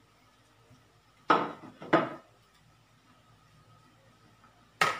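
Plates set down and moved on a kitchen countertop: three sharp clacks, two about half a second apart a little over a second in and one near the end.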